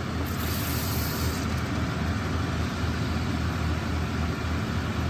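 Pitha frying in hot oil, a steady sizzle over a constant low hum, with a brief sharper hiss about half a second in.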